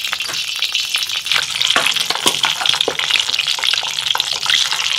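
Boiled potatoes frying in hot ghee and refined oil in a wok: a steady sizzle with fine crackling.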